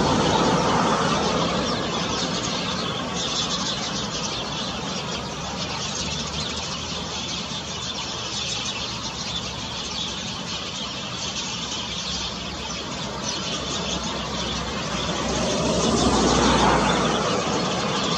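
Steady road traffic noise, with a vehicle passing and growing loudest about sixteen seconds in.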